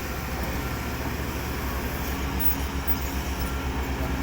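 Diesel engine of heavy construction equipment running steadily, a low rumble with an even pulse.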